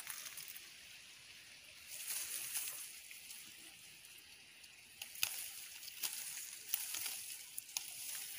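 Faint rustling of leaves and twigs as a hand moves through a fruit-laden tree branch, a soft hiss broken by scattered sharp clicks that come more often in the second half.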